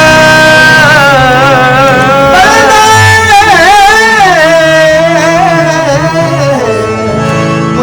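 Qawwali singing: a voice holds a long note and then winds it through wavering ornaments, over steady instrumental accompaniment.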